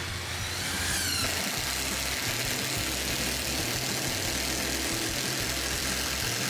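A power tool's motor spinning up with a rising whine over the first second, then running steadily with a loud high hiss that cuts off suddenly near the end. Background music with a bass line plays underneath.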